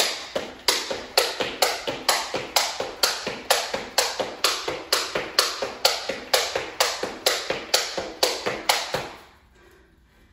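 Jump rope skipping on a wooden floor: the rope slaps the floor with each jump in a steady rhythm, a little over two strokes a second. It stops about nine seconds in.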